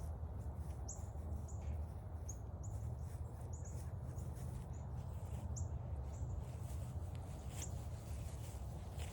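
Small birds giving short, high chirps at irregular intervals, over a low steady rumble, with a few soft footsteps on the trail.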